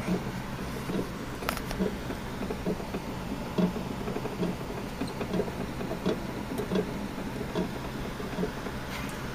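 A mouse gnawing and tugging at a piece of granola bar against cardboard: small, irregular scratches and taps, a few sharper clicks among them, over a steady low hum.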